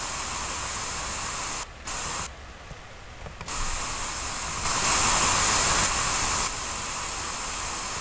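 Steady hiss of an online hearing test's calibration noise, playing while its volume is being set. It changes level in steps several times, drops to much quieter for about a second near the middle, and comes back louder about two seconds later.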